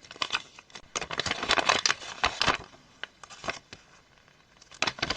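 A folded paper data sheet being unfolded and handled, crinkling and rustling in bursts, with a quieter pause in the middle before more rustling near the end.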